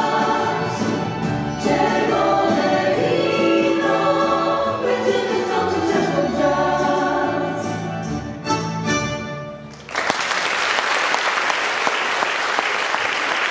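A girls' vocal ensemble sings in harmony over an instrumental band, with ticking cymbals above. The song winds down and ends about ten seconds in. The audience then breaks at once into steady applause.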